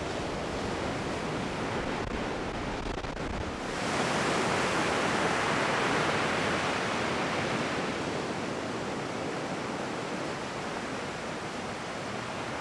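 Sea surf washing and breaking in a steady rushing hiss, growing louder and brighter about four seconds in.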